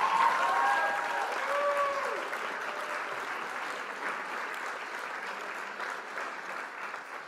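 Crowd applauding, with cheering voices in the first couple of seconds, then slowly dying away near the end.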